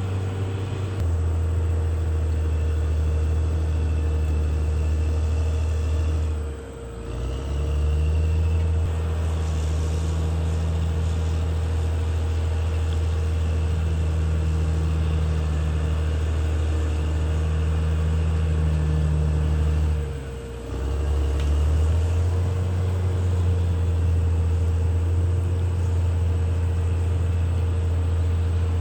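CAT D6R XL bulldozer's diesel engine running steadily with a low, heavy sound and a constant higher whine. Twice, about seven seconds in and again about twenty seconds in, the engine sound drops briefly and then comes back.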